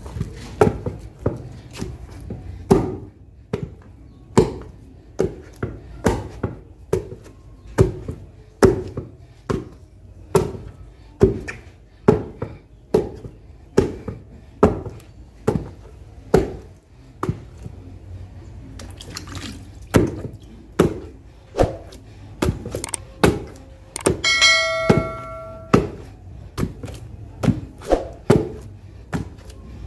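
Wooden pestle pounding boiled yam in a wooden mortar: steady dull thuds a little more than one a second as the yam is worked into a smooth, stretchy dough. Near the end a short steady tone sounds for about a second.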